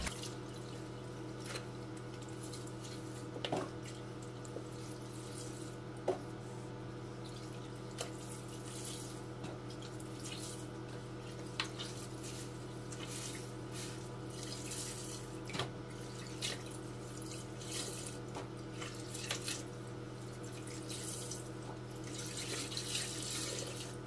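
Water dripping and splashing back into a small washing-machine tub as wet clothes are wrung out by hand, with scattered small splashes throughout. A steady low hum runs underneath.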